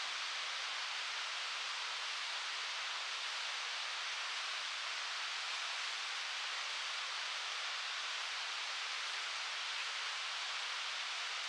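Waterfall's falling water making a steady, even rush, mostly a high hiss with no deep rumble.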